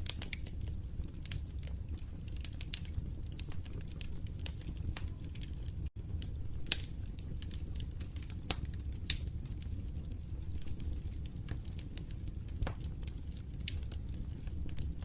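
Wood fire crackling in a fireplace: irregular sharp pops and snaps over a steady low rumble of the flames, with a few louder pops around the middle. The sound cuts out for a split second about six seconds in.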